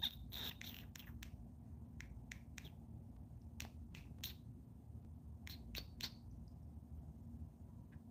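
Faint short clicks, a dozen or so scattered through the first six seconds, over a low steady room hum.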